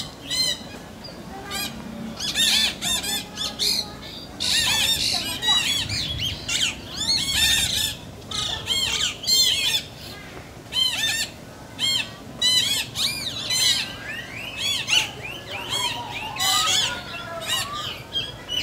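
A chorus of high-pitched squawking animal calls, many short calls in quick clusters, each rising and then falling in pitch, with a few lower gliding calls near the end.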